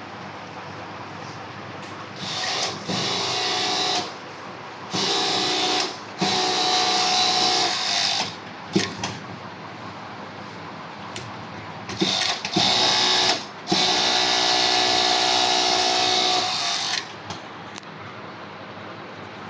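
Industrial overlock sewing machine (EPZ V5-5UT, 2-needle 5-thread) stitching at high speed in several bursts of one to three seconds, each a steady high whine, with short pauses between them. A few sharp clicks fall around the middle.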